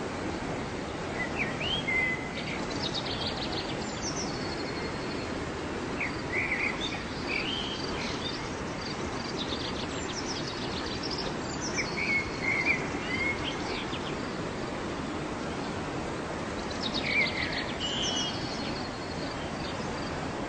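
Waterfall rushing steadily, with a songbird singing short chirping, trilled phrases over it about four times: near the start, around a third of the way in, midway and near the end.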